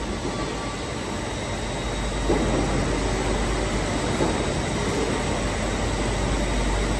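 Conveyors and machinery of a Grecon Dimter OptiCut S 90 XL optimizing cross-cut saw line running steadily, growing louder about two seconds in.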